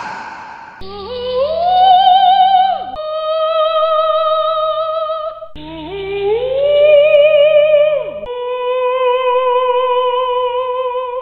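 Ghost-wail sound effect: a high, wordless, voice-like tone with a slow wobble. It slides up and drops, then holds a steady note, and the whole phrase comes twice, with a low hum under the rising parts.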